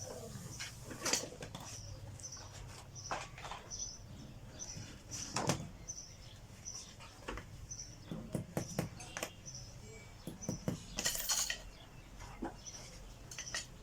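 Irregular metallic clinks and knocks of hand tools on bicycle parts during a repair, several louder ones about a second, five seconds and eleven seconds in. A short high chirp repeats at an even pace throughout.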